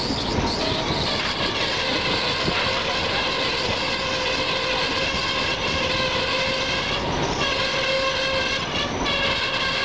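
A train's horn sounding for a level crossing, heard from a carriage of the moving train: a steady blast starts about a second in and is broken twice briefly near the end. Wheels on the rails rumble underneath.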